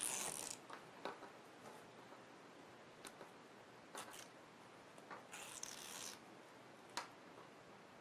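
Short, faint scratchy rasps of threads being pulled crosswise out of stiff woven Ban Roll interfacing tape with a pin, fraying its edge. There are a few separate strokes, the longest about five seconds in, with a sharp tick about seven seconds in.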